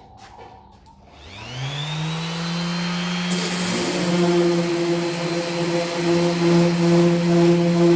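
An electric motor, like a power tool's, spins up with a rising whine about a second in and settles into a steady hum. About two seconds later a harsh hiss joins it and runs on with the hum.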